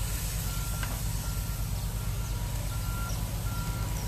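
A heavy truck's reversing alarm beeping at an even pace, about five beeps, over the steady low rumble of its diesel engine. This is the sign of the truck backing up.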